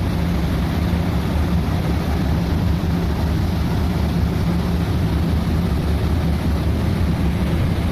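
A motor yacht's twin 1050-horsepower engines running steadily at speed, a deep drone under a steady rushing noise of water and wind.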